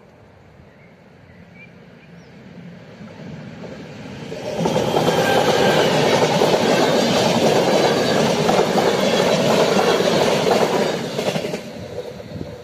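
RegioJet passenger train of yellow coaches passing over the level crossing, its wheels running on the rails. The noise builds for a few seconds, stays loud for about six seconds as the coaches go by, then dies away near the end.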